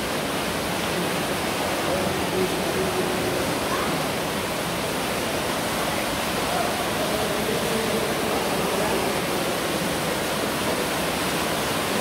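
Underground waterfall in a limestone cave pouring into a deep pool: a steady rush of flowing water.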